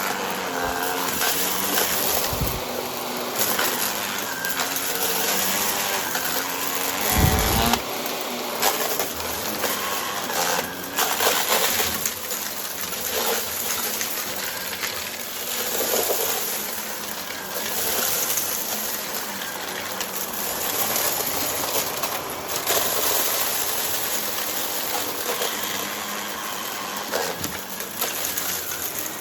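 Vacuum cleaner with its brushroll spinning, running steadily while crunching up dry debris, with scattered clicks of debris and a couple of dull thumps.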